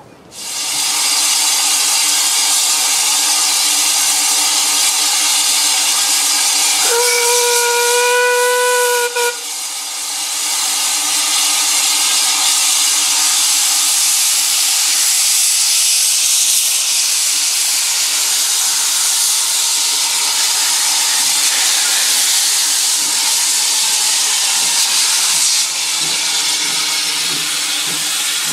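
Steam tank locomotive Spitfire hissing loudly and steadily as steam blows from its open cylinder drain cocks, with one whistle blast of about two seconds starting about seven seconds in, rising slightly in pitch.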